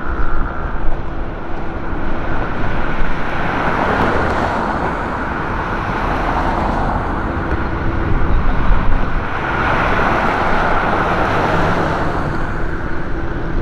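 Road traffic noise, with two louder swells about four and ten seconds in.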